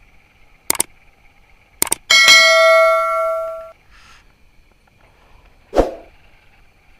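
A metal object is struck once with a clang and rings with a bell-like tone that fades over about a second and a half. A couple of sharp clicks come before it, and a dull thump comes near the end.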